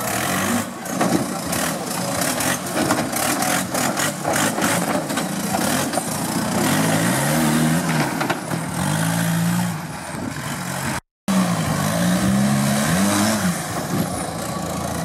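Off-road trial buggy's engine revving up and down as it crawls and climbs over rock, its pitch rising and falling again and again, with sharp clicks and knocks in the first few seconds. The sound cuts out completely for a moment about eleven seconds in.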